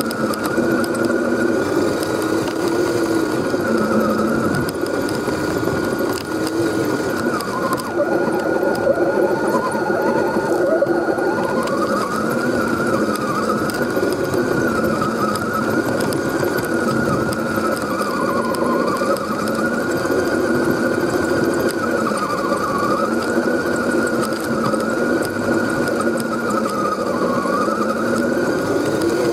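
Electric motor and geared drivetrain of an Axial SCX10 RC crawler whining as it drives. The pitch rises and falls again and again as the throttle and load change.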